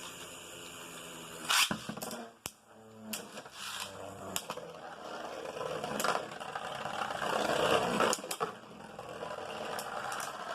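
Beyblade Burst tops, Winning Valkyrie and Orb Aegis, spinning and clashing in a plastic stadium. A steady spinning whir is broken by sharp clacks as the tops hit, with grinding scrapes growing louder toward the end.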